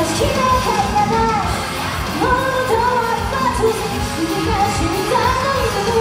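Idol pop song playing with a woman singing the melody over a steady beat.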